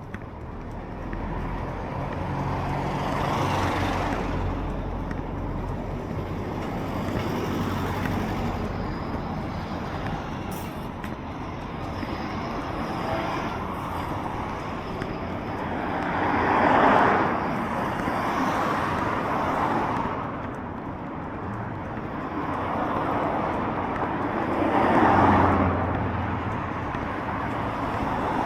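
Road traffic passing on a city street: several vehicles go by in turn, each rising and fading over a few seconds, the loudest about halfway through and again near the end, over a steady traffic hum.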